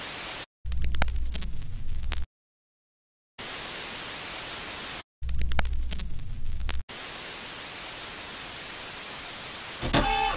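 Television static hiss in abrupt bursts, cut by sudden silences, alternating with louder distorted glitch passages that carry a low rumble. Music starts near the end.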